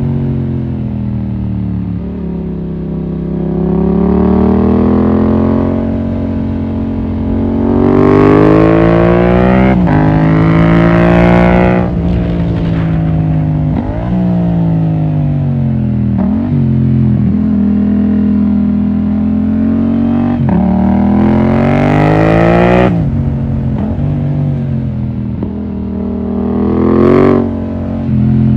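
Yamaha MT-07's 689 cc parallel-twin engine pulling hard up a mountain road. The revs climb and drop sharply again and again as it shifts gears, easing off and picking up again through the bends.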